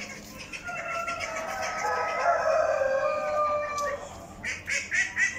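Several roosters crowing, their long calls overlapping. About four seconds in, geese start honking in quick repeated calls, about four a second; these are stressed geese.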